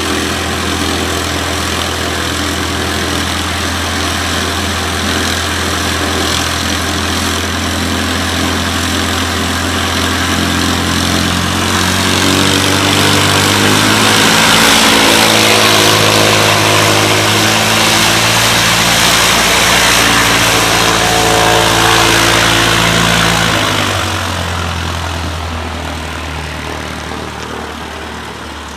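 Single-engine light aircraft's piston engine and propeller running at idle, then throttled up about twelve seconds in with the pitch shifting, held louder for about ten seconds, then dropping back and fading as the plane taxis away.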